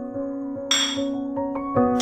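Background music with held notes that change every half second or so, and a brief bright ringing hit a little under a second in.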